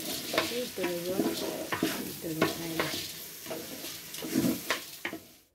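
Rice, mung dal, potatoes and carrots frying in oil in a metal pot, a steady sizzle broken by repeated scrapes and knocks of the spatula as it stirs: the dry-frying stage of bhuna khichuri before water goes in. The sound cuts off abruptly near the end.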